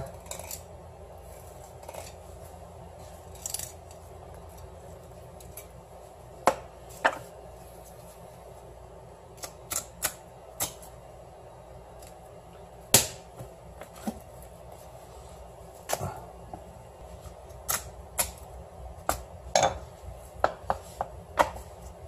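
Knife work on a cutting board while black sea bream are being cut open: scattered, irregular sharp clicks and taps of the blade and fish on the board, with one louder knock about halfway through, over a steady low hum.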